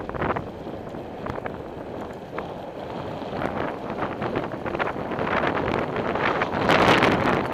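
Wind buffeting a cycling camera's microphone while riding, with frequent small knocks and rattles from the bike over the road surface. The rushing grows louder towards the end, then eases slightly.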